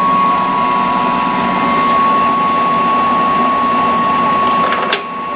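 ENCO 14" x 40" engine lathe running under power, its gearing and turning lead screw giving a steady mechanical whine with a high, constant tone. A short click comes near the end, after which the sound drops a little.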